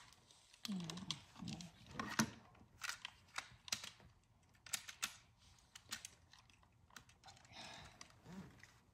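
Light, irregular clicks and taps of plastic Beyblade spinning-top parts and launcher being handled and fitted together by hand.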